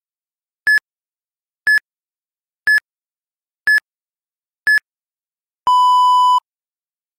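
Interval-training timer countdown: five short high beeps one second apart, then one longer, lower beep. It marks the switch from one one-minute interval to the next, between fast running and recovery.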